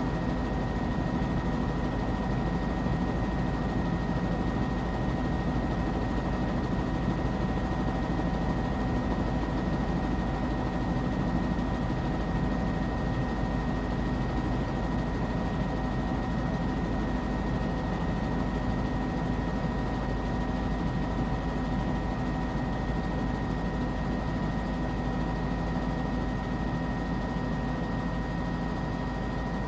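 News helicopter's engine and rotor running steadily in flight: a constant drone with a few steady high tones over it.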